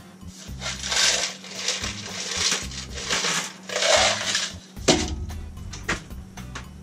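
Sheet-metal smoke pipe rattling and scraping as it is worked into place, in several irregular bursts, with a sharp metallic knock about five seconds in.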